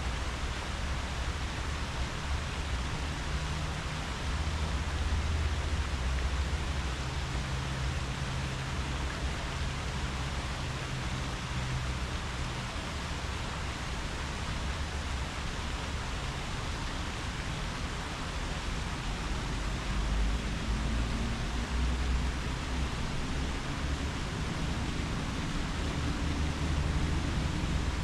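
Steady wind through tree leaves, an even rustling hiss with a low rumble underneath, swelling slightly now and then.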